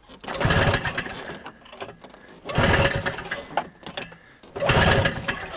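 1987 Ski-Doo Safari 377's two-stroke engine being cranked with the pull-start three times, each pull a short quick chug, turning over without catching: a no-start, which the owner puts down to no fuel reaching the engine.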